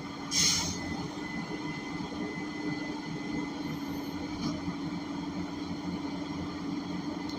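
Cabin noise of a 2021 Gillig BRT Plus transit bus on the move: a steady drone from its Cummins Westport L9N natural-gas engine with road rumble underneath. A short, loud hiss cuts in about half a second in.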